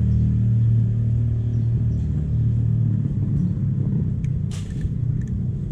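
A motor vehicle's engine running nearby: a steady low hum that weakens after about three seconds. A short scratchy noise comes near the end.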